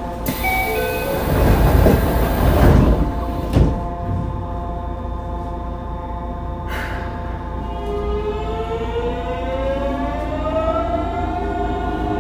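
Yokohama Municipal Subway 3000A train's Mitsubishi GTO-VVVF traction inverter, heard from on board. A loud rush of noise with hiss in the first few seconds, then a short knock. From about two-thirds of the way in, the inverter whine, several tones together, rises in pitch as the train pulls away.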